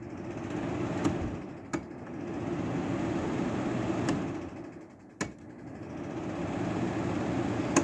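Window air conditioner's fan running with a steady whir. It eases down about five seconds in and builds back up, with a few sharp clicks along the way.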